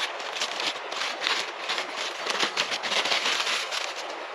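Crinkled aluminium foil being peeled off a potato baked in campfire embers: a quick run of sharp crackles that thickens about two seconds in.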